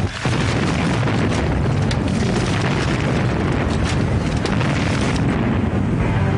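Battle sound effects: a continuous heavy rumble of explosions with many scattered sharp cracks. Music comes in just before the end.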